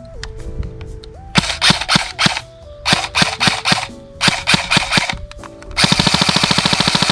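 Lancer Tactical LT35 electric airsoft gun firing: three short strings of rapid shots, then a continuous full-auto burst from about six seconds in.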